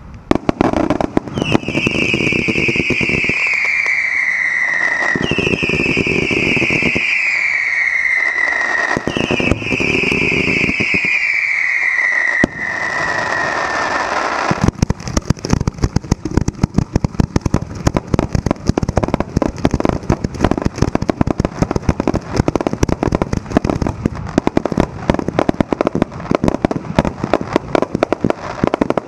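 Fireworks display finale fired at close range: three long whistles, each falling in pitch over about three seconds, over a steady crackle. From about halfway, a dense, rapid barrage of launches and bursts, the pops coming almost continuously.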